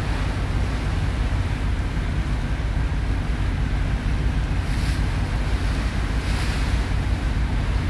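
Purse-seine fishing vessel under way: the steady low rumble of its engine under the rush of the sea along the hull and wind buffeting the microphone, with two brief hissing swells of spray about five seconds in and again a second and a half later.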